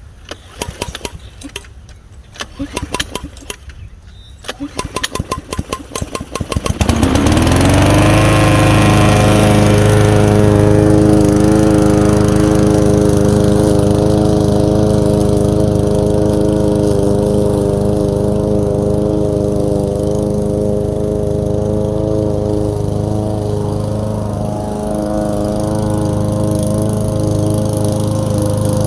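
PowerSmart 170 cc gas lawn mower engine being pull-started: a few seconds of uneven turning-over pulses from the recoil starter, then the engine catches about seven seconds in, quickly rises in pitch and settles into steady running. This mower usually needs a few pulls before it will start.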